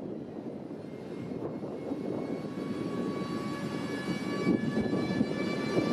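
ÖBB class 1216 Taurus electric locomotive hauling a passenger train at low speed, its steady high whine of several tones over a rolling rumble growing louder as it approaches.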